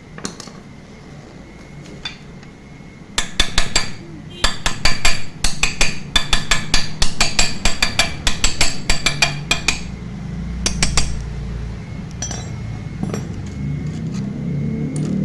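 Quick, irregular run of sharp metallic clinks and taps from hand tools working on a scooter engine, loudest through the middle and thinning out toward the end.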